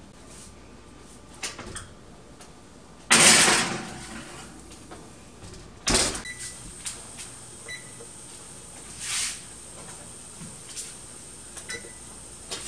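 Oven door of a gas range opened and the muffin tin loaded in, making a loud noisy rush lasting under a second about three seconds in. The door then shuts with a sharp bang about six seconds in, followed by a few light clicks.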